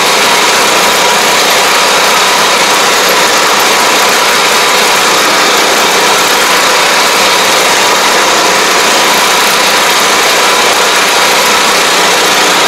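Engine of a riding pesticide sprayer (AP1) running steadily and loud close to the microphone, a constant noise with a faint steady whine in it.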